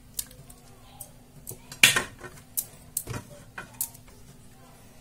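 A ladle knocking and scraping against the sides of a cooking pot of curry as it is stirred and scooped: a handful of sharp clinks, the loudest just before two seconds in.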